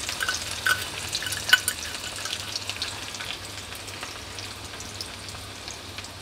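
Chopped garlic sizzling in hot mustard oil in a kadai. Sharp crackles and pops come in the first couple of seconds, then it settles into a steadier sizzle that slowly quietens as the garlic's moisture cooks off.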